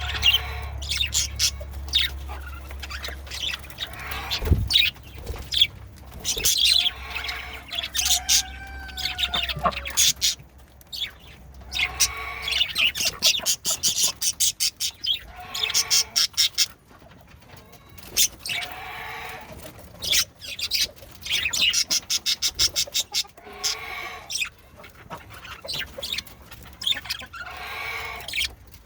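Male budgerigars chattering: a busy stream of quick chirps and clicking trills mixed with repeated harsher calls.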